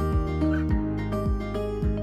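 Background music: held chords over a steady beat of about two low thumps a second.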